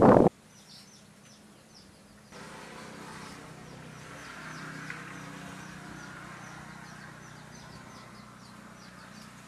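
A loud gust of wind on the microphone cuts off about a third of a second in. After it, small birds chirp over and over in short, high, downward-slurred notes above a soft outdoor background hum.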